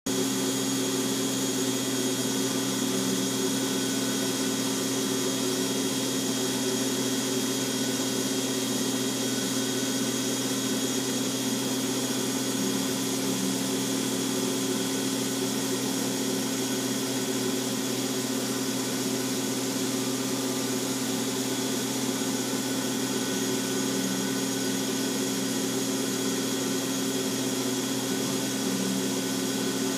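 CNC milling machine spindle running at a steady speed while its small engraving cutter cuts lettering into the steel receiver of a Thompson submachine gun: a constant hum with a high whine over it.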